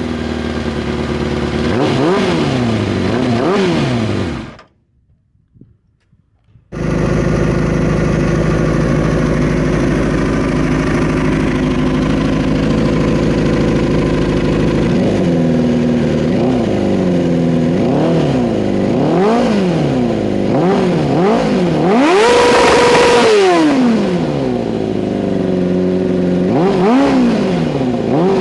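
Kawasaki ZXR400 inline-four engine idling and being revved, with repeated quick throttle blips whose pitch rises and falls. It cuts out briefly about five seconds in, idles steadily, then revs again, holding high revs for about two seconds past the midpoint.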